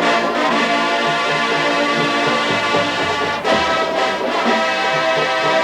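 College marching band playing brass-heavy music: full sustained chords over a pulsing bass line, with a new accented phrase coming in about three and a half seconds in.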